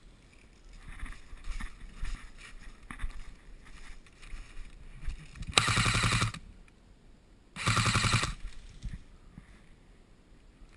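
ASG MP5 airsoft gun firing two short full-auto bursts, each under a second of rapid, even shots, about halfway through and again two seconds later. Lighter rustling of movement comes before them.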